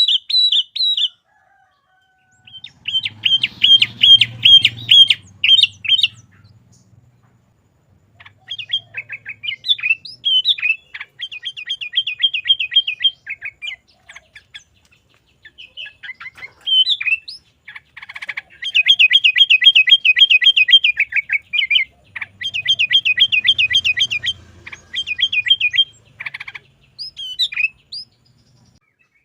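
Sooty-headed bulbul (kutilang) in full song: runs of fast, evenly repeated chirping notes, each run lasting a few seconds, broken by short pauses and quick sliding calls.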